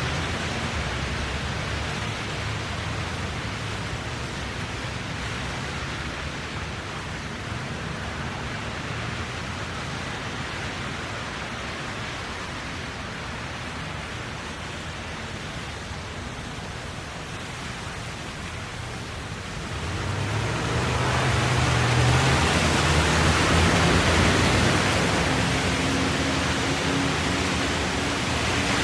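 Traffic on a wet road: a steady hiss of tyres on wet tarmac with a low engine hum. About two-thirds of the way through, a vehicle's tyre spray and engine swell louder as it passes, then ease off a little near the end.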